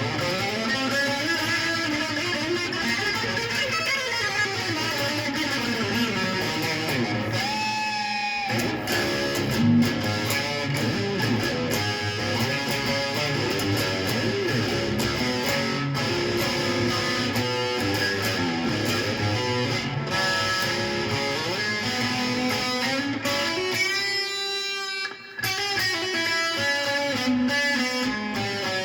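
A string instrument played continuously, with many sliding and bending notes and a short break about 25 seconds in.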